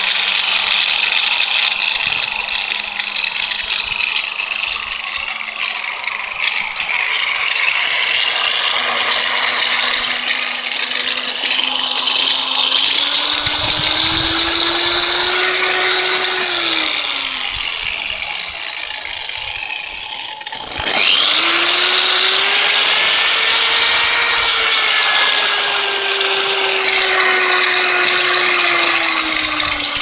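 Angle grinder spinning with no load, its speed set through a burnt-out vacuum cleaner's power regulator dial. The motor hums steadily at low speed, then its pitch climbs and falls as the dial is turned. About two-thirds of the way through it winds down and stops, then starts with a click and spins up to a higher pitch that eases off slowly.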